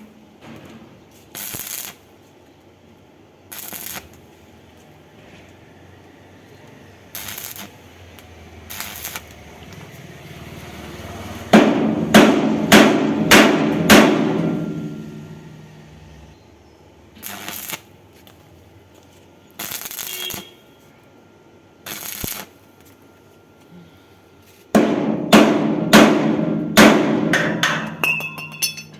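Hammer blows on steel in two quick series, each of several ringing strikes, about twelve seconds in and again near the end. Short isolated bursts of noise come between them.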